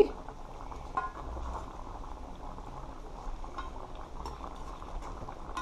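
Thick gravy of a cow foot and broad bean stew simmering and bubbling in a pot, with a spoon lifting gravy out and letting it pour back in. A light clink about a second in.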